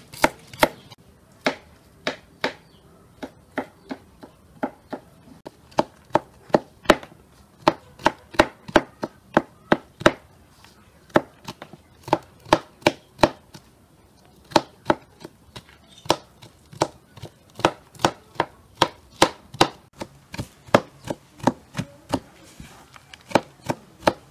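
Kitchen knife chopping walnut kernels on a wooden cutting board: an uneven run of sharp knocks, about two or three a second, with a short pause a little past halfway through.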